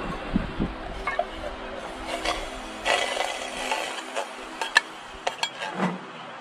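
Scattered light clicks and taps with some rubbing and rustling, the sound of camp dishes, utensils and food packaging being handled, over a faint steady hum.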